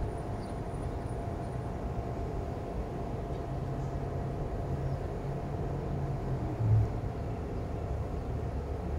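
Steady low outdoor background rumble, with a faint low hum midway and one brief low bump near the end.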